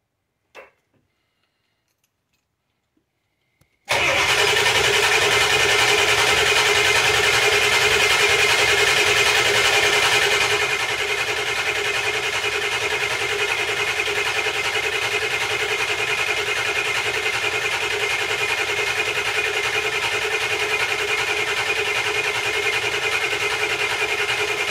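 Ford 7.3 PowerStroke V8 turbo diesel, fitted with a Holset HX50 turbo, on its first start with the new turbo: near silence with a couple of faint clicks, then about four seconds in the engine catches abruptly and runs steadily. About ten seconds in it settles a little quieter and keeps idling evenly.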